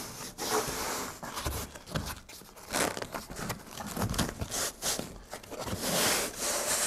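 Self-adhesive ice and water shield membrane crinkling and rustling as hands press and smooth it onto the roof decking and up the chimney face, with irregular crackles as the sheet is handled.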